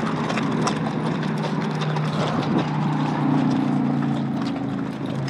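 Horses' hooves clopping on a packed dirt track as the horses walk along, with irregular hoofbeats throughout. A steady low hum runs underneath.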